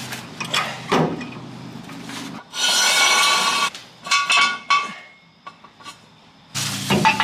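Steel jack stand and floor jack being handled on a concrete floor: a long metallic scrape with ringing a couple of seconds in, followed by a few sharp metal clicks.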